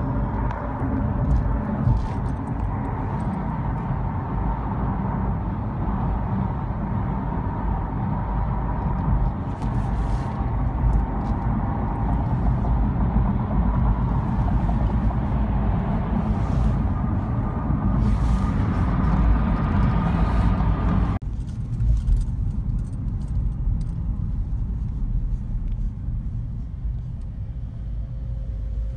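Road and engine noise heard inside a moving car's cabin, a steady low rumble with tyre hiss. About two-thirds of the way in it changes abruptly to a quieter, duller rumble.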